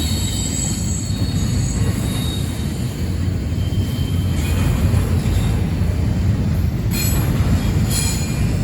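Intermodal freight train cars rolling past with a steady low rumble, their wheels squealing in thin high tones at the start and in two short squeals near the end.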